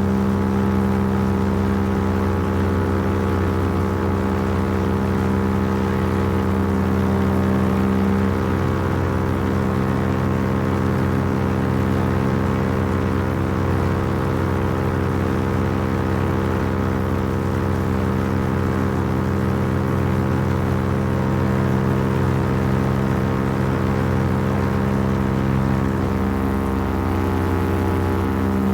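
Paramotor engine and propeller running steadily in flight, a constant droning hum. Its pitch shifts slightly about a third of the way in and shifts back near the end, as the throttle setting changes a little.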